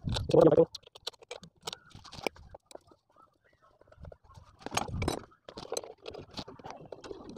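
Light metallic clicks and taps of a small spanner being fitted to and turning the cover nuts on a Honda CD-70 motorcycle engine's aluminium crankcase as they are tightened, with a duller knock about five seconds in. A brief bit of voice comes right at the start.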